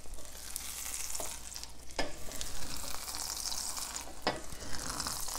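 An omelette sizzling in a non-stick frying pan while a wooden spatula scrapes underneath it, loosening it from the pan bottom. A few sharper scrapes or knocks stand out, clearest about two seconds in and just after four seconds.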